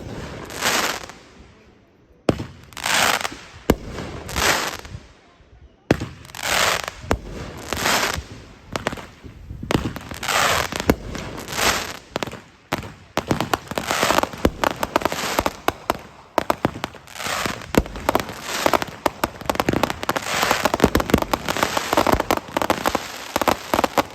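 Consumer firework cakes firing: sharp launch thumps, each followed by a crackling aerial break that fades, spaced apart at first. About ten seconds in, Dominator Sparta and then Helion cakes join for the finale and the shots pile up into a dense, continuous crackling barrage.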